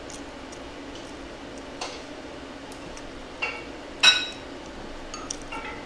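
Eating utensils clinking against dishes: a string of short, sharp clinks, some ringing briefly, the loudest about four seconds in, over a faint steady hum.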